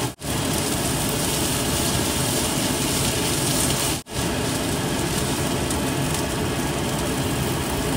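Fried rice with vegetables sizzling steadily in a hot pan as it is stirred with a spatula. The sizzle drops out briefly twice, just after the start and about halfway.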